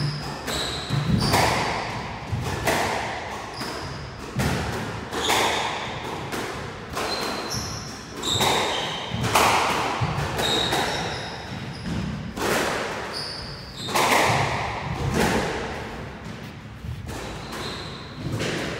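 Squash rally: a squash ball struck again and again by rackets and cracking off the court walls, about once a second, each hit echoing in the court. Short high squeaks of shoes on the wooden floor come between the hits.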